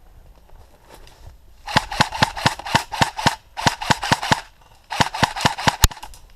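Airsoft rifle firing BBs in three bursts of rapid shots, about six a second, the bursts pausing briefly between them. A single sharp snap follows near the end.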